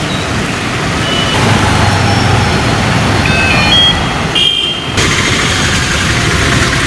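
Street traffic in the rain: auto-rickshaw and other vehicle engines running over a steady wet hiss, with a few short high beeps. The sound changes abruptly about a second in and again about five seconds in.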